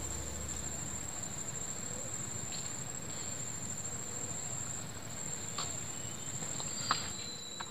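Insects chirring in one steady high-pitched note, with a couple of light knocks near the end.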